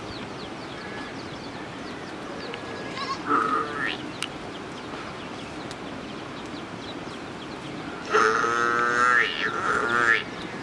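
A farm animal bleating: a short call about three seconds in, then a louder, wavering bleat lasting about two seconds near the end.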